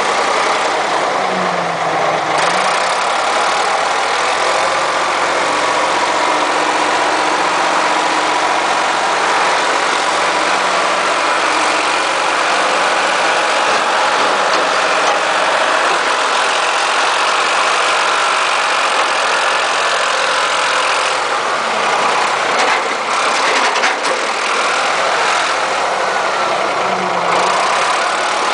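Ford 555 backhoe's freshly rebuilt engine idling steadily, with a slight dip in speed near the start and again near the end.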